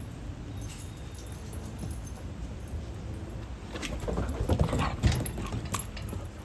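A dog making brief noises for a couple of seconds near the middle, with a sharp knock near the end of that stretch, over a steady low rumble.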